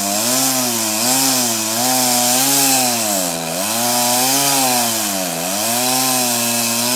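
Chainsaw running under load while cutting through a log. Its engine pitch sags and picks back up about once a second as the chain bites into the wood, with deeper dips near the middle and again near the end.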